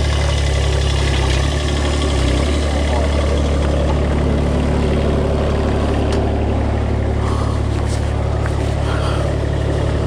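An engine idling steadily, a deep even hum that does not change.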